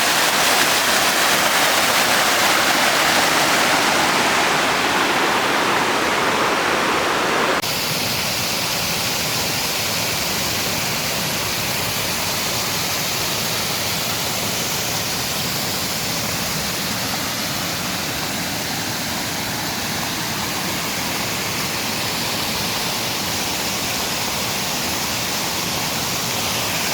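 Rushing water of a mountain stream and waterfall, a steady hiss. About seven to eight seconds in it changes abruptly to a slightly quieter, softer-sounding rush.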